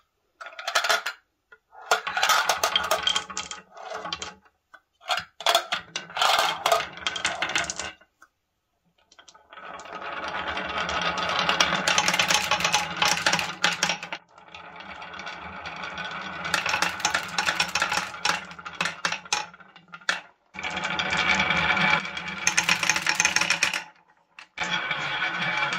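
Several balls rolling down wavy grooved wooden tracks, a rolling rattle full of clicks as they knock against the groove walls and each other. It comes in several runs of a few seconds each, with short silent breaks between them.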